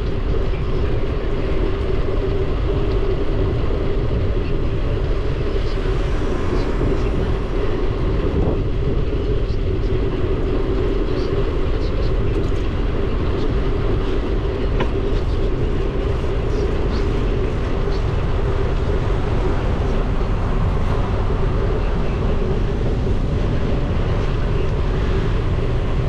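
Steady wind rumble on the action camera's microphone and road noise from a bicycle rolling along a paved bike lane, with a steady hum and scattered small clicks and rattles.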